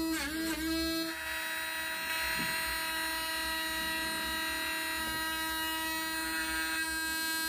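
Small battery-powered electric motor in a scale-model tractor, driving its PTO shaft with a steady whine. The pitch wobbles and dips during the first second, then holds steady.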